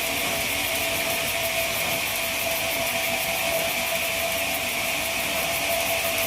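Sawmill machinery running steadily: an even mechanical noise with a constant whine.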